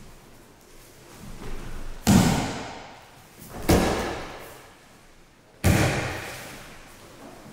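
Three heavy thuds of aikido breakfalls: bodies landing on the mats after shihonage throws, each dying away with a short echo.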